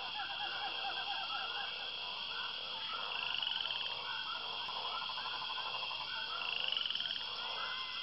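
Rapid, repeated animal calls: a dense chattering chorus of short chirps, with a higher steady trill and two brief rising runs about three seconds in and again near the end.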